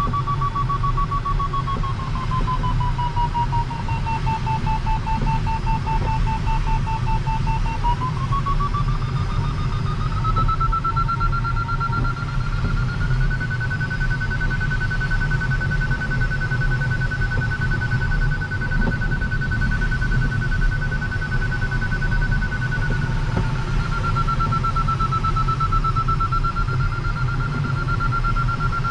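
Glider's audio variometer beeping steadily in a climb, its tone sinking lower for a few seconds, then rising to a higher pitch about a third of the way through and holding there: the higher tone signals stronger lift in the thermal. Underneath, a steady rush of airflow over the LS-4 glider's canopy.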